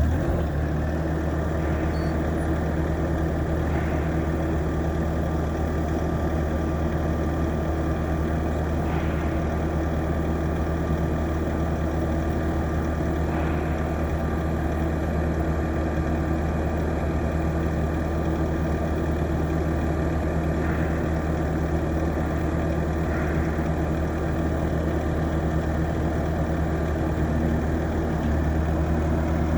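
Diesel engine of a Bobcat T650 skid steer idling steadily just after starting, with a low, even hum; its note shifts slightly near the end.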